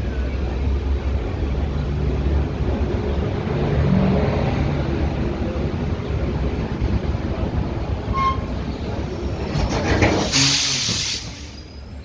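Indian Railways passenger train running with a steady low rumble. About ten seconds in comes a loud burst of air hiss lasting about a second: the brake pipe venting as the alarm chain is pulled and the emergency brake applies.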